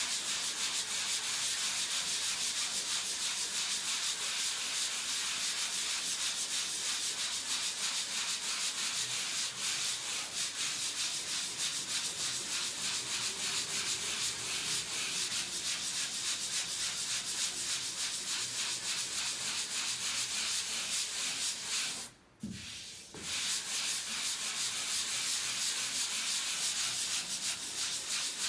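Sanding sponge rubbed quickly back and forth over dried joint compound on a drywall patch: a steady scratchy hiss of fast strokes, the final sanding of the skim coat. It breaks off briefly about 22 seconds in, then resumes.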